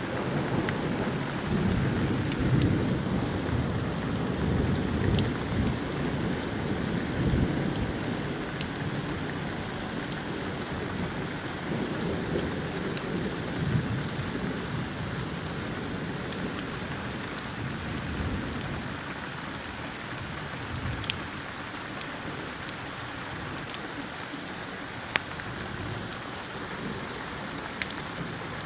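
Thunder rumbling low and long over steady rain, heaviest in the first half and dying away after about fourteen seconds. The rain keeps on, with scattered sharp ticks.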